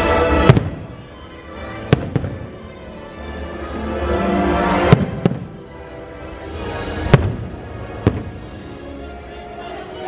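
Aerial firework shells bursting in about seven sharp bangs at irregular intervals. The show's soundtrack music plays steadily underneath.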